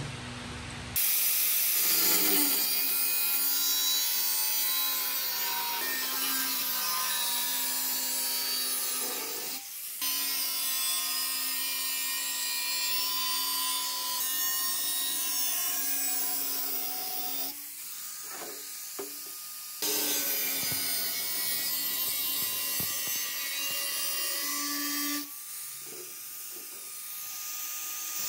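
Electric power tool running steadily with a motor whine and a gritty hiss as it works on rusted parts, in several short clips cut together, so the tone and level change abruptly every few seconds.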